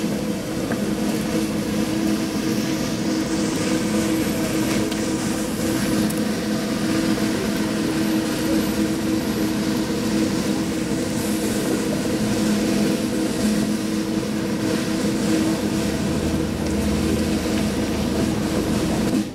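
Engine running steadily, a constant drone with hiss over it and a little more low rumble near the end.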